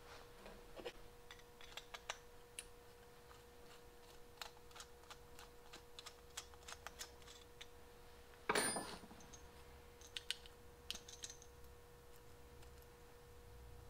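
Faint, scattered light clicks and taps of small carburetor parts and hand tools being handled, with one louder brief scraping rustle about eight and a half seconds in and a faint steady hum underneath.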